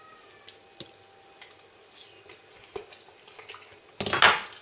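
A few faint clicks of utensils against a glass dish, then about four seconds in a short, loud scraping rustle as a plastic spatula stirs vinegared sushi rice in a glass baking dish. At the very start, a pet's high whining call trails off downward.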